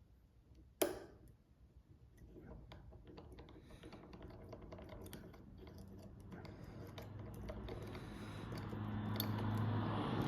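Lock picks working the pins of a cylinder lock: small metallic ticks and scrapes, with one sharp click about a second in. A low hum and rustling grow louder over the last few seconds.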